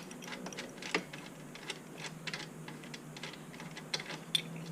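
Irregular light metallic clicks and clinks of a wrench loosening and removing the rear axle nuts on an e-bike.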